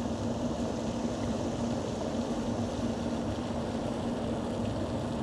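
Steady outdoor background noise with a constant low hum underneath; nothing stands out.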